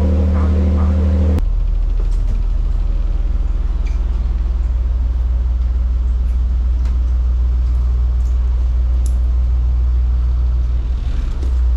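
Ferry engine running with a steady, loud low drone, its tone changing abruptly about a second and a half in.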